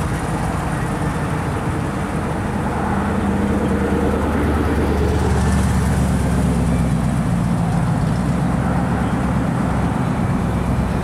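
Classic Chrysler V8 engines running at low speed as the cars drive slowly past, a low steady rumble that grows louder about halfway through as the second car comes by.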